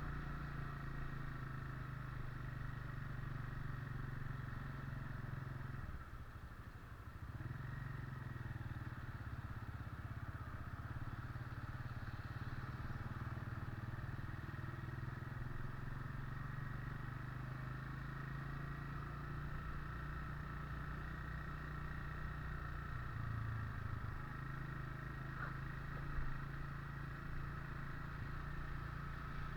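Motorcycle engine running steadily while riding, dipping briefly about six seconds in before picking up again.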